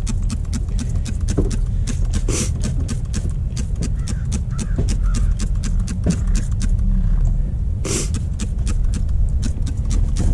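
Trigger spray bottle of leak-detector solution spraying two short hissing bursts onto new gas pipe fittings, about two seconds in and again about eight seconds in, testing the joints for gas leaks. Under it runs a steady low rumble and a fast, regular ticking.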